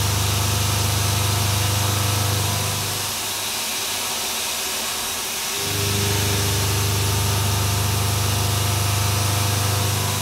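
CNC mill's Maritool 1/2-inch hard-milling end mill cutting AR450 hardened steel plate at a reduced spindle speed. It gives a steady hum without chatter, which the machinist calls way better. The hum fades for a few seconds in the middle and then returns, over a steady hiss.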